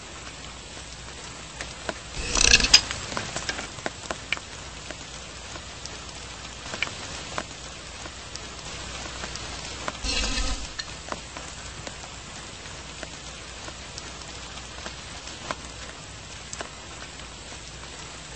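Steady light rain pattering with scattered drips. A short scrape about two seconds in, and a brief brushing sweep over the top of a film-wrapped box about ten seconds in, rubbing it to build up static charge.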